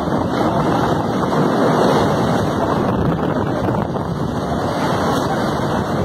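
Strong gusting wind blowing hard and steadily, buffeting the phone's microphone.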